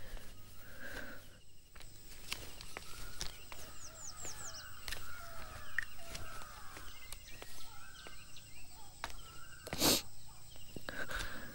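Birds chirping and calling over and over in short, sliding notes, with clucking like domestic fowl. About ten seconds in there is one short, loud noise.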